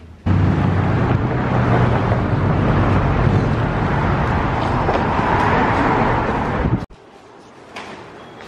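Loud, steady street noise from road traffic, with a low rumble, cutting off suddenly near the end.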